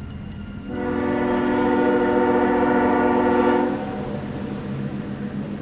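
Ore freight train's horn sounding one steady blast of about three seconds, starting about a second in, over the low rumble of the train running.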